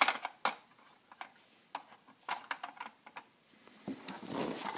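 Light, irregular clicks and taps of small plastic toys being handled, with rustling handling noise near the end.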